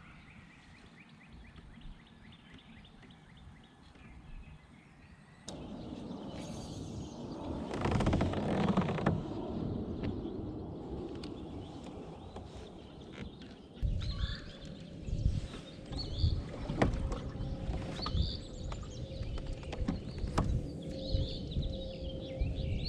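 Sounds of a kayak out on the water: a quiet opening, then water noise and, from about halfway, repeated low knocks against the hull, with short bird chirps.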